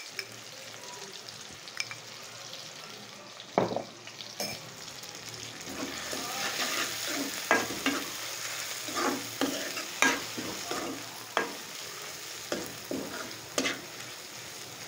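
Onions, tomato, garlic and ginger paste sizzling in ghee in a metal karahi while a metal spoon stirs and scrapes the pan, clinking against it again and again, more often from about six seconds in.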